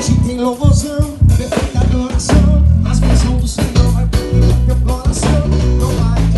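A live band playing a forró gospel tune at a sound check: drum kit keeping a steady beat under a busy bass line and guitar.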